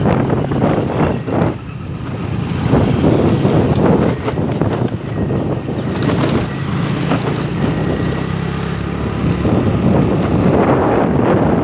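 Wind buffeting the microphone on a moving motorcycle, rising and falling in gusts, with the motorcycle's engine running steadily as a low hum underneath.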